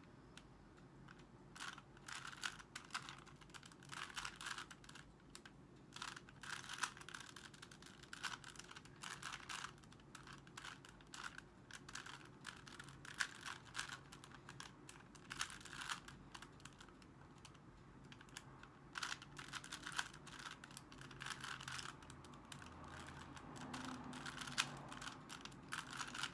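Rubik's Cube being turned by hand: rapid plastic clicking of the layers in irregular bursts of turns with short pauses, while the second layer is being solved.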